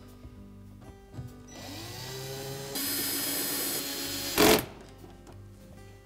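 Cordless drill/driver driving a Torx screw into a dishwasher door panel: the motor whine rises in pitch as it spins up and then runs steadily and louder for about two seconds. It ends about four and a half seconds in with a short, very loud burst that cuts off suddenly.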